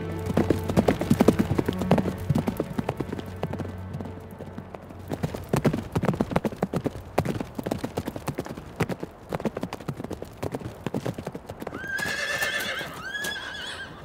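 Hooves of two ridden horses clip-clopping on a stony dirt track, with a steady run of irregular hoofbeats. Near the end a horse whinnies twice.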